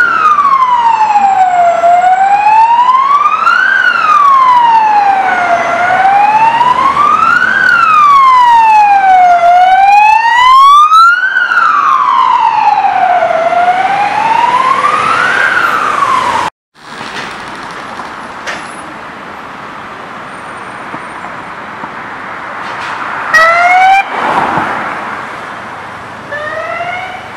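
Emergency vehicle siren wailing, its pitch sliding slowly up and down about every four seconds. It breaks off suddenly after about sixteen seconds, leaving quieter traffic noise with a few short, rising siren whoops near the end.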